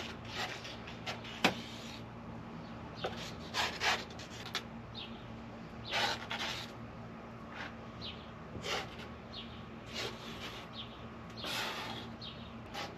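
A piece of wood scraping and pushing wet epoxy resin across the van floor, in irregular rubbing strokes.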